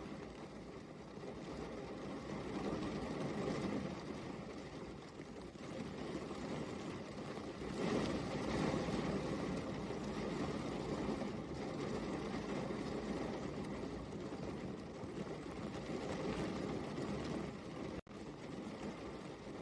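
Steady rain, an even hiss that swells and eases, loudest about halfway through, with a momentary break near the end.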